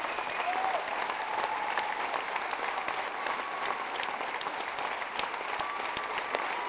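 Audience applauding: a dense, steady wash of many hands clapping.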